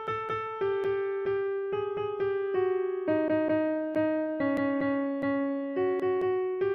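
Background music on a piano-like keyboard: a slow melody over evenly repeated chords, several notes a second.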